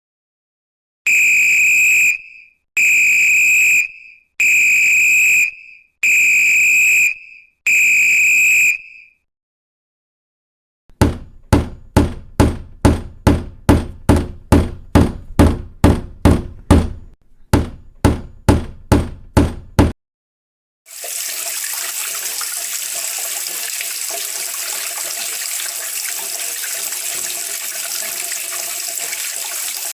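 A whistle blown in five long, even blasts. Then a hammer striking repeatedly, about two blows a second, with a short break near the end. Then a water tap running in a steady hiss.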